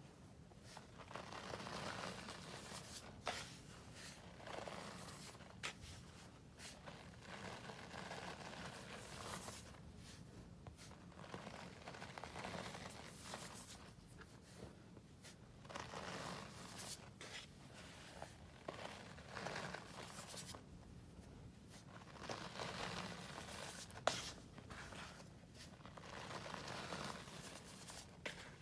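Hands squeezing, scooping and sifting powdered scouring cleanser (Ajax and Comet) in a plastic tub: soft crunching and rustling in irregular swells, with one sharp tap late on.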